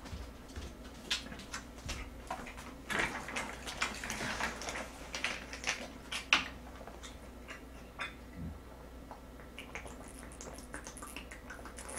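Plastic drink bottles being handled, then drinking from a large plastic water bottle. Irregular clicks and crackles, busiest in the first half with one sharp click about six seconds in, thinning out while he drinks.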